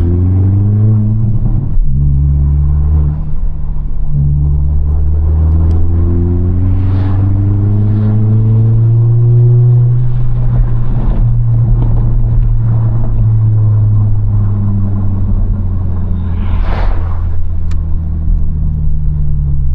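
2022 Honda Civic Si's 1.5-litre turbocharged four-cylinder engine pulling under acceleration: the pitch climbs, drops briefly with a gear change about two seconds in, climbs again for several seconds, then holds steady at cruise. A few short rushing noises come through near the middle and near the end.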